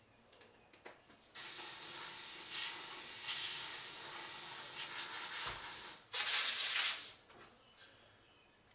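Airbrush hissing as it sprays paint onto a T-shirt: a steady spray of about four and a half seconds starting just over a second in, then a shorter, louder burst a little after the middle.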